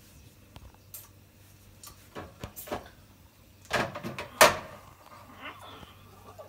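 Scattered clicks and knocks of items being moved and taken from refrigerator shelves, with two louder clatters about four seconds in.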